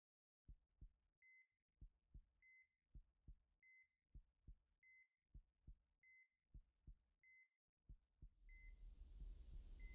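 Faint heartbeat sound effect, a double thump about every 1.2 s, each beat followed by a short high beep from a heart monitor, the steady pulse of a patient at the bedside. The thumps stop near the end as a soft hiss of room noise fades in.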